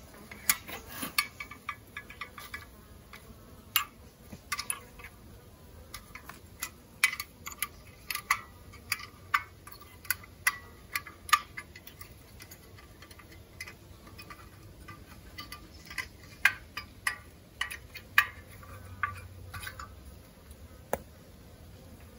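Irregular sharp clicks and small metal clinks from handling a compact portable gas camping stove and its fuel canister as the stove is unfolded and fitted.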